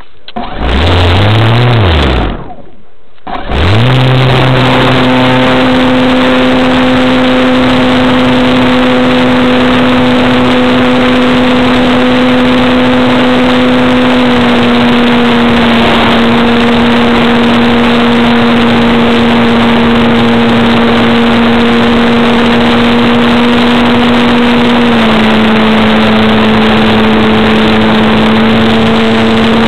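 Motor and propeller of a radio-controlled model Cessna, heard from a camera mounted on the plane. The motor spins up briefly and cuts off, then spins up again about three seconds in and holds a steady pitch, dropping slightly in pitch twice, over a steady rush of air.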